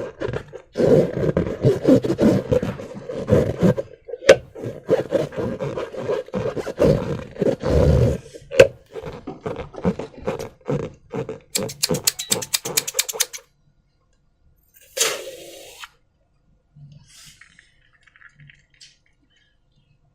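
Slime in rubber balloons being squeezed and worked by hand: wet squelching and crackling with a raspy, buzzing rubbery note, stopping about 13 seconds in, then one more short squelch a second and a half later.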